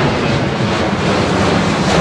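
Twin-engine jet airliner climbing out overhead after takeoff: a loud, steady rush of jet engine noise.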